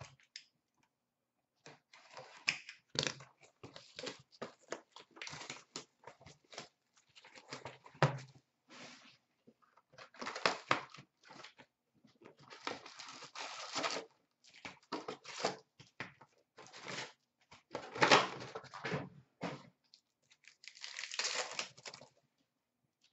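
Packaging crinkling and tearing in irregular bursts as a box of 2016-17 Upper Deck SP Authentic hockey cards is opened and its wrapped packs are lifted out.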